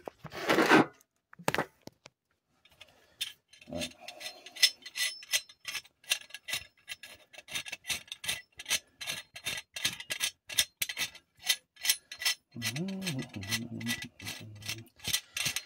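Bearing puller being set up and wound by hand: a long run of quick, regular clicks, about four a second.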